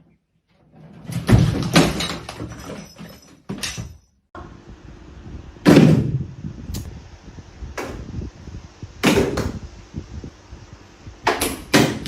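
A series of sharp knocks and bangs, some in quick pairs, with a busier cluster of knocks near the start.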